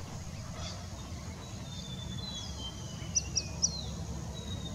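High, thin bird chirps: a faint whistle sliding slowly down in pitch, then three quick downward chirps about three seconds in, over a low steady rumble of outdoor background noise.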